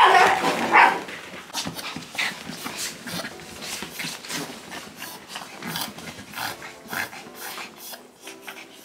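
Small pet dogs whining and panting as they scramble over a person in bed, with a loud whine in the first second followed by rustling bedding and scrabbling paws.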